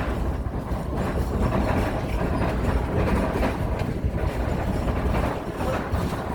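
Heritage passenger train rolling along the track, heard from on board: a steady noise of wheels running on the rails.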